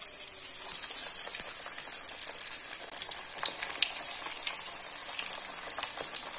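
Cornflake-coated chicken legs deep-frying in hot oil: a steady high sizzle with many scattered crackles and pops.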